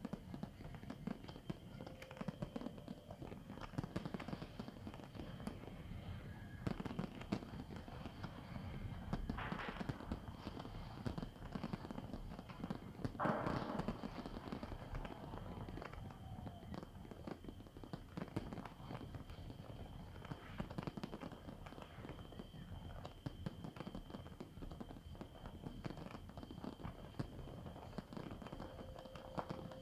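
Fireworks display: a continuous barrage of bursting shells and crackle, with a louder burst about thirteen seconds in.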